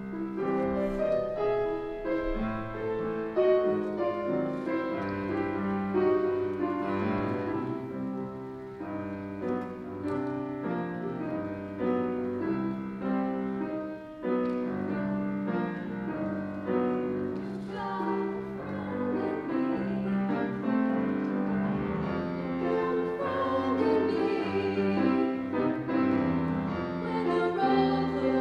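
Grand piano playing an accompaniment, starting suddenly at the very beginning.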